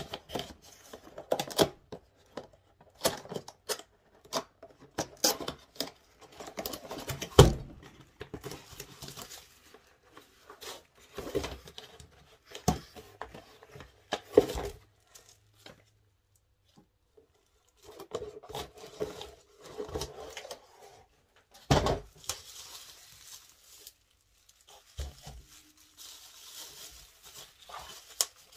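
A laptop cooling pad's cardboard box being handled and opened: irregular knocks, scrapes and rustles of cardboard. Near the end comes the crinkling rustle of the bubble-wrap packing around the pad.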